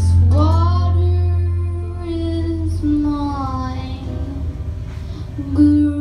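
Live bluegrass-style band: a young girl sings the lead in long held, gliding notes over upright bass and acoustic guitar. She starts a new sustained note near the end.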